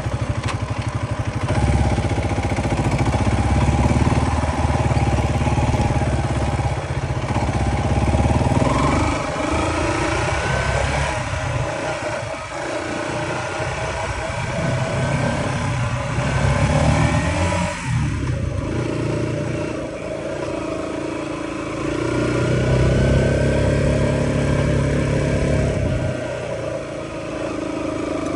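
Kawasaki KLR250's single-cylinder four-stroke engine running as the bike is ridden along a dirt trail, its pitch and loudness rising and falling with the throttle.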